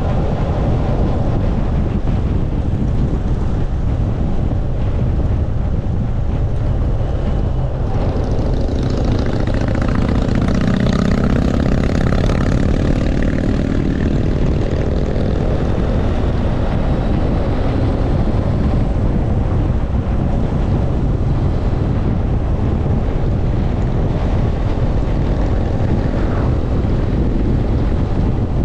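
Honda motorcycle riding at road speed: steady engine and road rumble under heavy wind noise on the microphone. The sound swells louder for a few seconds about a third of the way in.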